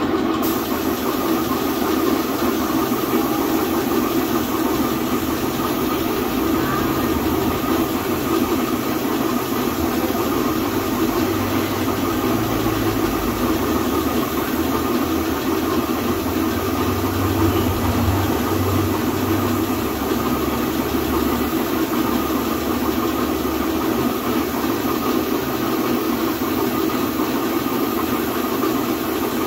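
Air compressor motor running steadily, with the hiss of a gravity-feed air spray gun spraying paint.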